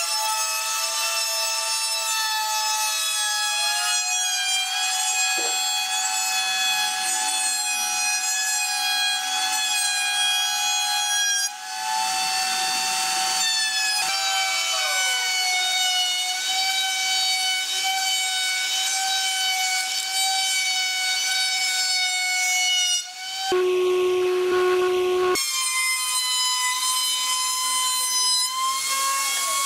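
Electric router mounted under a router table running at full speed, a steady high whine with many overtones, as its red bearing-guided bit cuts a profile along a pine board fed against the fence. The whine dips briefly near the middle and changes to a lower tone for a couple of seconds about three-quarters of the way through.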